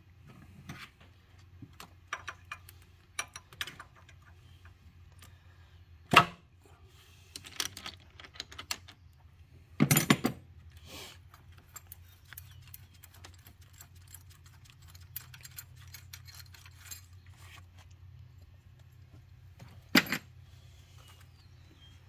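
Metal clicks, clinks and scrapes of tools and parts as a high-pressure fuel pump on a GM 2.4 L engine is pried and wiggled loose. Sharper knocks come at about six seconds, ten seconds and twenty seconds, over a steady low hum.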